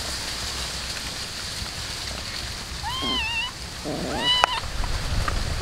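Cats eating raw fish, with a steady crackle of chewing, and a cat meowing twice with short rising calls, about three and four and a half seconds in.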